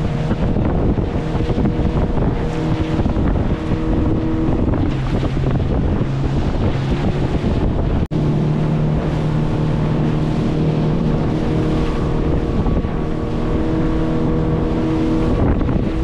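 Motorboat engine running under way, its pitch shifting up and down a few times, with wind buffeting the microphone; the sound drops out for an instant about halfway.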